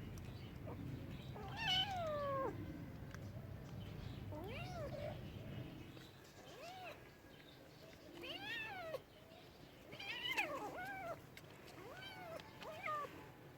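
A domestic cat meowing repeatedly, about eight meows with rising-then-falling pitch. The first, about two seconds in, is the longest and slides down at its end.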